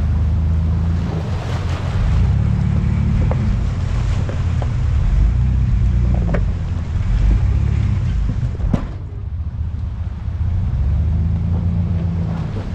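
Vintage Willys Jeep truck's engine running steadily at low speed off-road, with several knocks and rattles from the truck over rough ground, the sharpest about nine seconds in.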